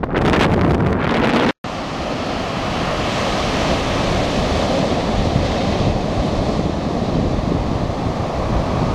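Wind buffeting the microphone, cut off by a brief dropout about a second and a half in, then a steady rush of ocean surf breaking on a sandy beach, with wind on the microphone.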